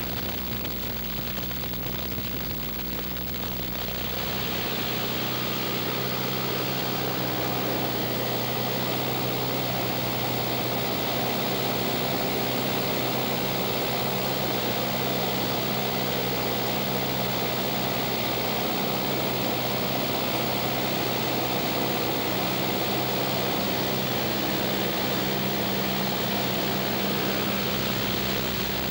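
Cessna light aircraft's piston engine and propeller droning steadily in cruise, heard from inside the cabin with a broad rush of air. The sound grows louder about four seconds in, then holds even.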